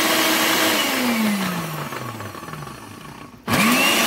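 Proctor Silex blender motor running on a jar of lemon chunks, then switched off and winding down with falling pitch; about half a second before the end it is switched back on and spins up with a rising whine. The blender is failing to chop up the lemon, which the owner puts down to its no longer chopping anything after a year.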